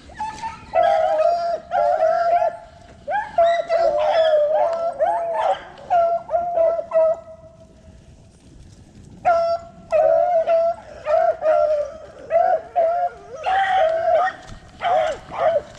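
A pack of beagles baying and howling as they run a rabbit's scent trail, several dogs' voices overlapping in bursts. The cry breaks off for a couple of seconds midway, then picks up again.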